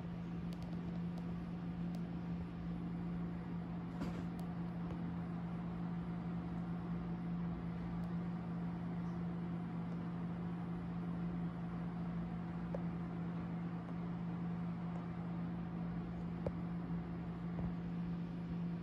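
A steady low hum over a faint even hiss, with a few faint clicks about four seconds in.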